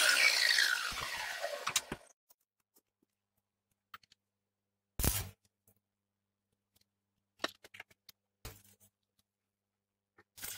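Angle grinder spinning down after being switched off, its whine falling steadily in pitch and fading over about two seconds. Then a few short knocks and clicks of metal parts being handled at the bench vise.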